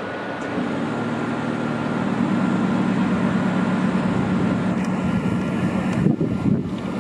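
Electric locomotive FS E.656 standing with its machinery running: a steady low hum with a thin, steady high whine above it, the hum growing louder about half a second in.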